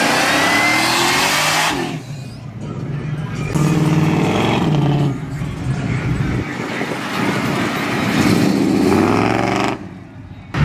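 Car engines revving as vehicles accelerate past one after another: a loud rev rising in pitch at the start, a deep low engine note around four seconds in, and another rising rev near the end.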